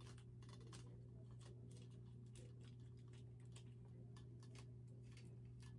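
Faint, irregular small clicks and taps from a black metal telescopic ring-light stand being handled and adjusted, over a steady low hum.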